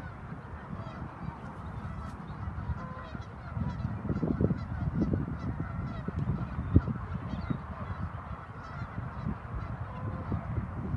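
Geese honking repeatedly, the calls coming close together and loudest in the middle stretch.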